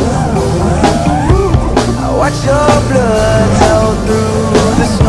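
Rock music with a drum kit keeping a steady beat under a lead melody whose notes bend up and down in pitch.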